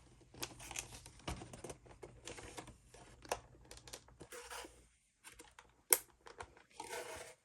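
Foil trading card booster pack being handled and torn open: irregular crinkling and tearing with small clicks, and one sharp tap nearly six seconds in.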